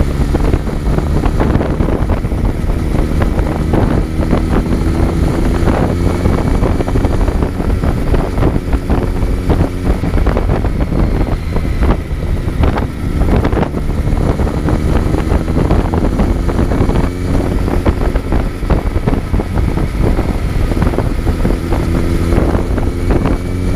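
Kawasaki Z900's inline-four engine recorded on board while riding, pulling up through the revs several times, with wind buffeting the microphone.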